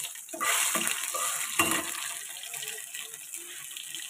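Sliced garlic and dried red chillies sizzling in hot oil in a non-stick frying pan while being browned for a tempering, with a few spatula scrapes against the pan. The sizzle is loudest in the first two seconds and dies down toward the end.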